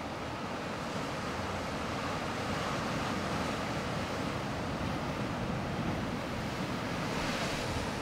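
Pacific Ocean surf washing and breaking against coastal rocks: a continuous rush of churning water that swells gradually, with a brighter surge of spray near the end.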